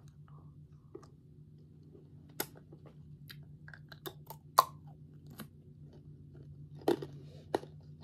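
Mouth sounds of eating a hard candy lollipop: irregular crunches, bites and smacks, the sharpest about two and a half and four and a half seconds in, over a steady low hum.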